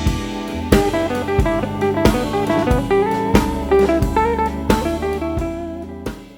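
Background music: a plucked guitar melody over a steady drum beat, fading out near the end.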